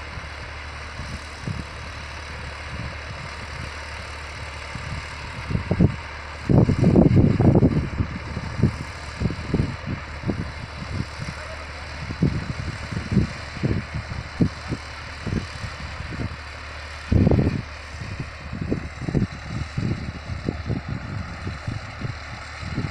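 A John Deere 5405 tractor's diesel engine running steadily under load while pulling a rotavator through the field, heard from a distance as a low drone. Irregular low rumbling buffets on the microphone come and go over it, loudest about seven seconds in and again about seventeen seconds in.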